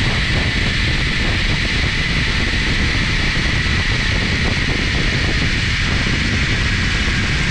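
Steady, loud rush of wind buffeting the microphone, with a constant high hiss over it.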